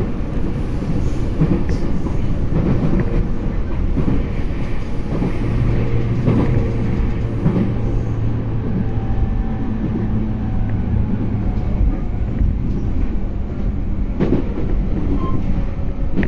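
Running noise of an E231-series electric commuter train heard from inside the passenger car: an even rumble of wheels on rail. A steady low hum sets in about five seconds in and fades out about seven seconds later.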